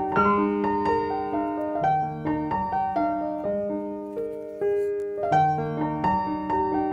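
Background piano music: a gentle melody of single struck notes over sustained lower notes, several notes a second.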